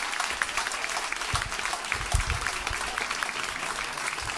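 Audience applauding, a steady patter of many hands clapping, with a few low thuds about a second and a half to two and a half seconds in.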